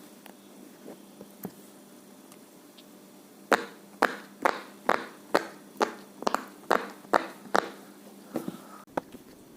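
Silicone pop-it fidget toy having its bubbles pressed one after another: about eleven sharp pops at roughly two a second, starting a few seconds in after some faint clicks.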